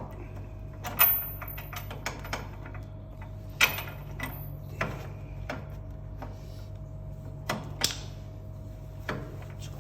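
Irregular metallic clicks and clinks as fastenings on a Taisei noodle-making machine's conveyor are loosened by hand, a few ringing briefly, over a steady low hum.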